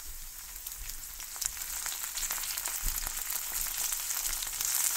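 Onions, green chili and ginger-garlic paste sizzling in hot oil in a kadai, the sizzle growing louder, with light clicks of a metal slotted spoon stirring against the pan.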